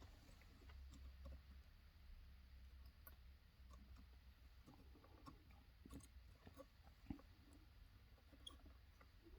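Near silence: faint scattered small clicks and taps of a soldering iron and tools being worked against the battery cells, one a little sharper about seven seconds in, over a low steady hum.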